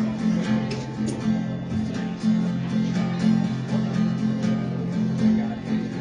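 Acoustic guitar strummed in a steady rhythm, played live.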